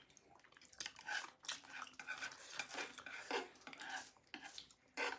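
Cutlery clinking and scraping against a plate as a serving of chowmein is stirred and picked up, many short irregular clicks with brief ringing.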